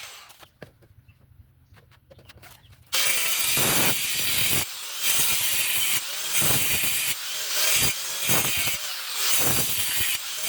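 Hand sawing: a saw's rasping back-and-forth strokes, about one or two a second, starting suddenly about three seconds in after near-quiet.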